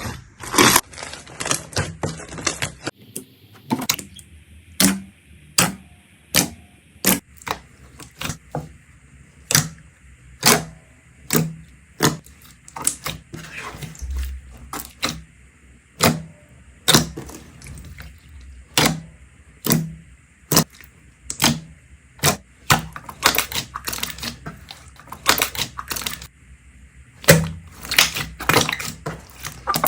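Slime worked by hand giving sharp pops and clicks: a dense crackling for the first few seconds, then separate clicks about once or twice a second.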